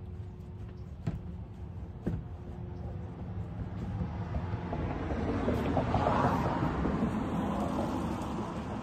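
A passing road vehicle: broad tyre-and-engine noise swells to a peak about six seconds in and then fades, over a steady low hum. Two sharp clicks come about a second apart near the start.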